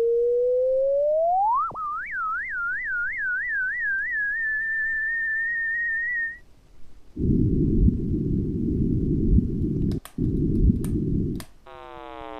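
Electronic pure-tone space sonification: a single whistle-like tone glides upward, wobbles in pitch several times, then holds a high steady note and stops about six seconds in. A low rumbling noise follows, with a short break about ten seconds in, and a set of falling chirps comes near the end.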